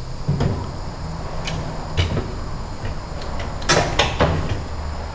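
Knocks and bumps from a granite vanity top being shifted into position by hand, a handful of short sharp hits with the loudest pair about four seconds in, over a steady low hum.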